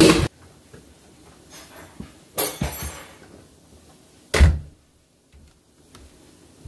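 A front door being worked: a clatter of its handle and latch about two and a half seconds in, then the door shutting with a single sharp thud about two seconds later, followed by a few faint clicks.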